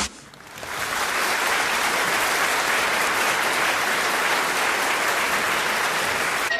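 Audience applause that swells in over the first second and then holds steady.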